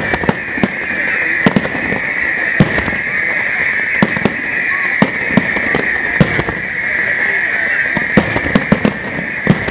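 Fireworks display: aerial shells bursting in an irregular run of sharp bangs and cracks, about a dozen in close succession, over a constant high hiss.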